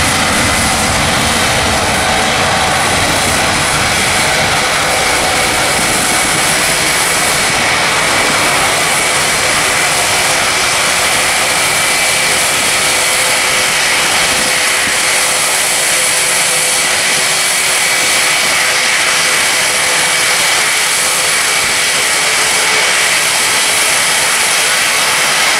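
Boeing 777 twin jet engines at takeoff power during the takeoff roll. The jet noise is loud and steady, with a thin high whine running through it.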